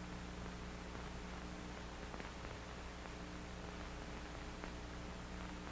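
Faint steady hiss and low hum of an old film soundtrack, with a few faint ticks and no other sound.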